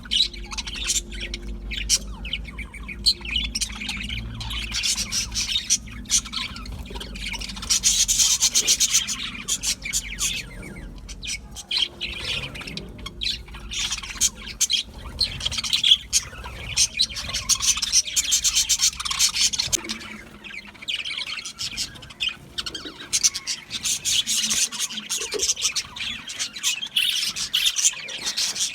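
A flock of budgerigars chattering: fast, continuous chirps and warbles with occasional squawks, growing louder in several stretches.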